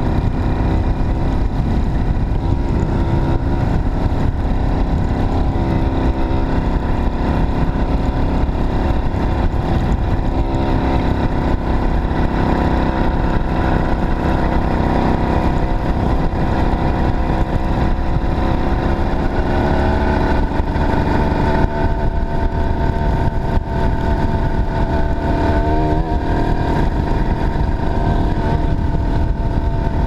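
Two-stroke Chinese 'China girl' tightcase bicycle engine with a 21 mm PHBG carburettor running under load, its pitch rising and falling with the throttle and climbing about two-thirds of the way through. A dense low rumble of wind on the microphone runs beneath it.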